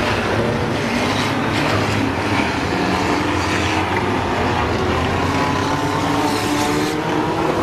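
Engines of small banger race cars running on the track: a steady, loud drone with more than one engine heard at once.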